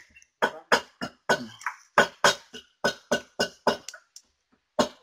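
A rapid, regular series of sharp knocks, about three a second, pausing briefly a little before the end and then starting again.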